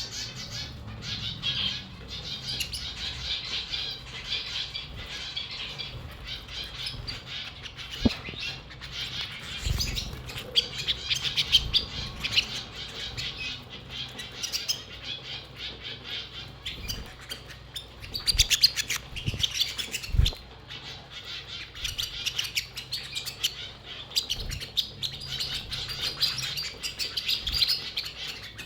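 Domestic canaries chirping and twittering continuously in quick, high trills, with a few soft low thumps scattered through.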